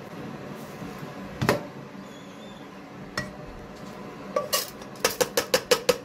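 Plastic strainer of rinsed red lentils knocked against the rim of a metal saucepan to empty it: a few single knocks, then a quick run of about seven taps near the end as the lentils drop into the pot.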